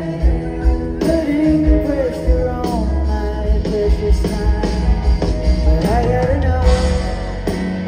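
Live rock band playing: electric guitars, bass, keyboards and drums with regular drum hits, and singing over the top.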